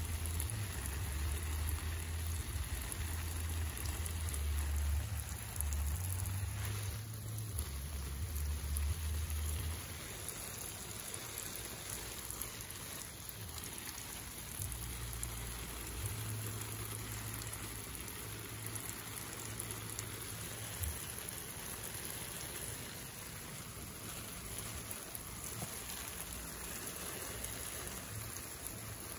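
Steady hiss of falling water, with a low rumble through roughly the first ten seconds and again from about fifteen to twenty-one seconds.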